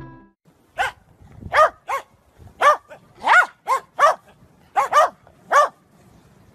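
A dog barking repeatedly: about ten short, high barks, each rising and falling in pitch, coming singly and in pairs.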